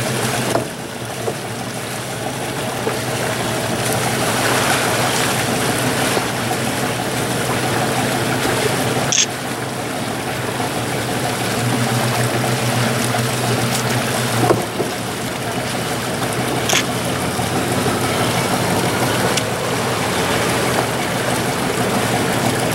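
Boat engine running steadily at low speed, a low hum under a steady wash of wind and water noise. A few brief sharp ticks come through about a third and three quarters of the way in.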